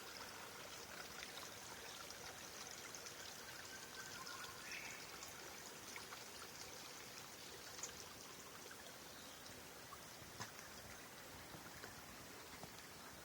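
Faint, steady trickle of a small rainforest stream, with a couple of brief clicks partway through.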